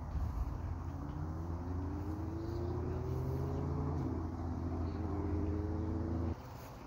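A motor vehicle's engine running, its pitch rising slowly as it speeds up, over a steady low rumble. The sound cuts off suddenly near the end.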